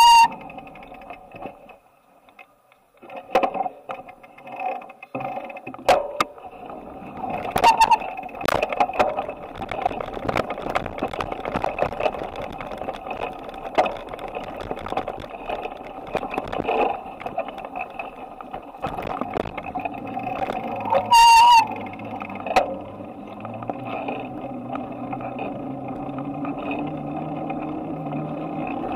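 Bicycle ride heard from a handlebar-mounted camera: steady rattling and rolling noise broken by many small clicks and knocks. A brief high-pitched squeal comes at the start and again about 21 seconds in, and a low hum slowly rises in pitch near the end.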